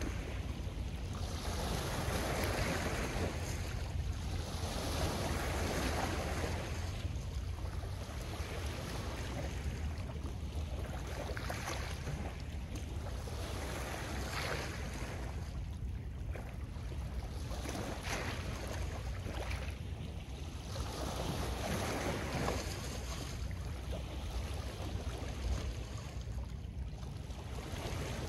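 Small waves washing onto a pebble and ice shore of a calm lake, swelling and fading every few seconds, over a steady low rumble of wind on the microphone.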